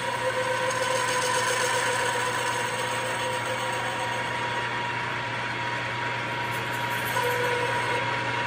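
Metal lathe running steadily while a boring bar takes a pass, opening up a hole in a steel block, with a steady high whine over a low hum.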